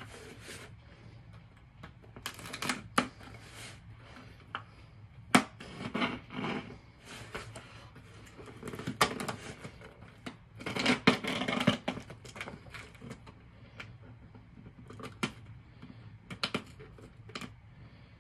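Packing tape being picked at and peeled off a cardboard box with a pen, with cardboard flaps scraping: irregular clicks, scratches and short tearing rustles, loudest in bursts around six, nine and eleven seconds in.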